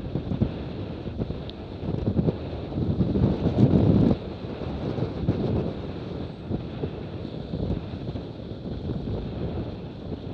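Wind buffeting the microphone over the rush of water and spray along the hulls of a Cirrus F18 racing catamaran sailing fast through chop. The buffeting swells loudest about three to four seconds in.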